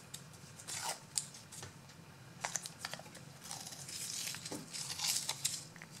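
Purple masking tape being peeled off its roll and torn, in short crackly rips and a longer peel in the second half, as it is wrapped around a lock cylinder.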